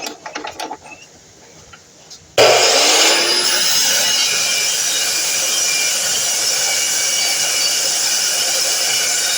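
A few clicks and knocks, then about two and a half seconds in a DeWalt miter saw's motor switches on, spins up and runs steadily at full speed with a loud whine.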